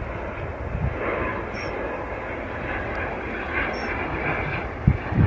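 ATR 72-500 twin-turboprop's engines and propellers droning steadily as it passes low on final approach with its gear down. There is a brief sharp low thump near the end.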